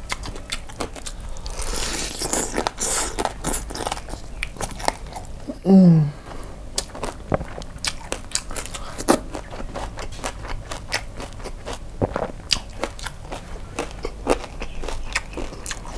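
Close-up crunching bites and wet chewing of crispy fried chicken coated in kimchi sauce, with many irregular crackles and a louder crunchy stretch a couple of seconds in. A short hum that falls in pitch comes from the eater just before the middle.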